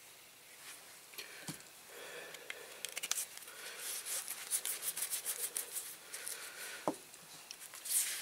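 Small parts of a diecast toy model being handled and fitted together by hand: scattered light clicks, taps and rubbing, with a quick run of clicks in the middle and a short knock now and then.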